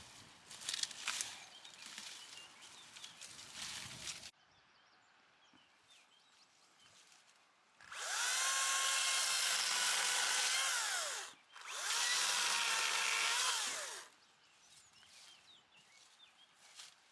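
Rustling and crackling for about four seconds, then faint bird chirps, then a small petrol engine on a power tool revved hard twice, each burst a few seconds long, its pitch falling as the throttle is let off.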